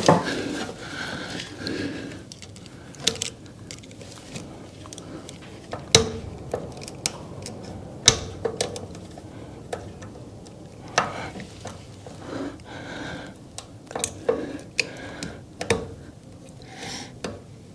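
Scattered metal clicks and clinks of hand tools on a snowblower drive chain as a chain link is worked into place, about a dozen sharp taps spread irregularly.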